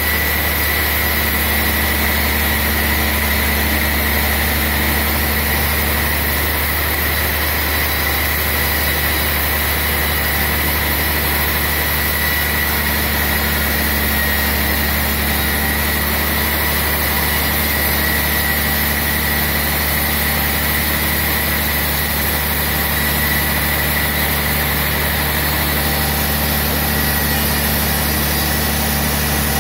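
Large band sawmill running steadily: a deep, even motor hum with a thin, steady whine above it.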